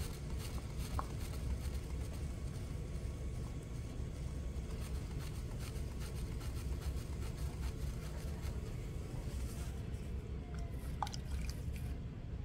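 Electric potter's wheel running with a steady low hum, with wet clay rubbing under the hands as the well of a cylinder is opened. A light click about eleven seconds in.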